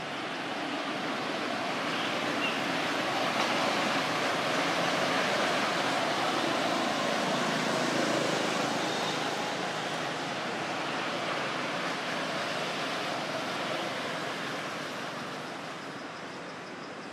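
Steady outdoor rushing noise that swells over the first few seconds and fades gradually toward the end.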